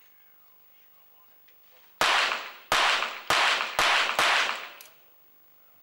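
Five rapid-fire pistol shots, .22 Short rimfire, fired in quick succession across about two seconds, one series at five targets. Each crack is followed by a short echo.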